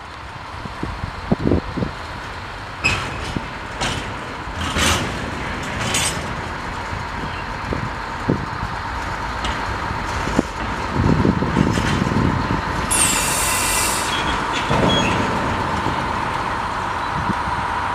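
Diesel shunting tractor running as it moves a rake of tank wagons past, with a steady whine and the wagon wheels knocking sharply over rail joints in the first few seconds. About two-thirds of the way through there is a short hiss of air.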